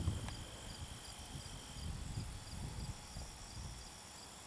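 Field insects trilling steadily, with a short chirp repeating a few times a second. A low rumble underneath stops about three seconds in.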